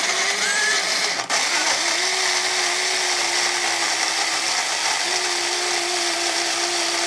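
NutriBullet 600 Series personal blender running steadily while it blends a zucchini and avocado smoothie, with the cup held pressed down on the motor base. The motor gives a constant hum, with a brief dip about a second in.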